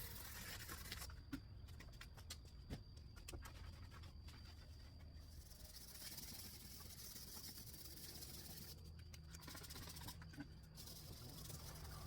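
Near silence: a faint low hum and hiss, with a few faint clicks.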